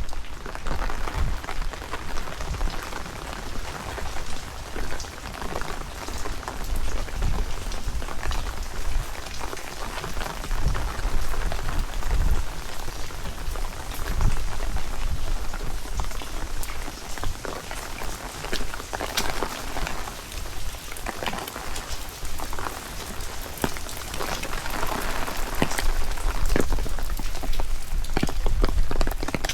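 Heavy rain falling steadily, with many individual drops ticking sharply, and strong gusty wind rumbling on the microphone.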